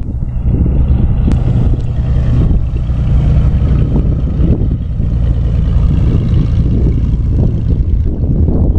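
Single-engine piston propeller plane running steadily at low power as it rolls past on the taxiway: a loud, even engine-and-propeller drone.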